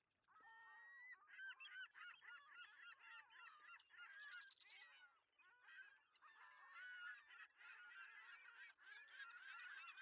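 A large flock of waterbirds calling, many faint overlapping calls at once, with no break.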